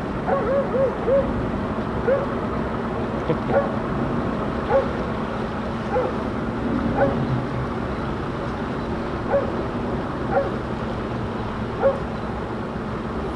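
A dog barking repeatedly: a quick run of four short barks at the start, then single barks about every second, spaced unevenly, over a steady low hum.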